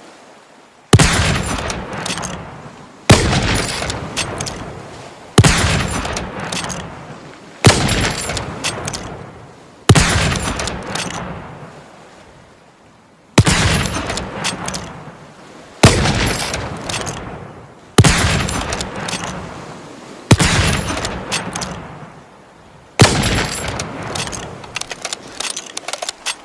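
Lee-Enfield bolt-action rifle firing ten single shots, about one every two to three seconds. Each shot has a sharp crack and a long echoing tail, with short metallic clicks of the bolt being worked between shots.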